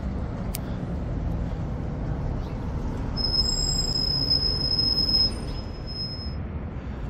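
Street traffic rumbling steadily. About three seconds in, a vehicle's brakes give one high-pitched squeal that holds steady for about three seconds and then fades.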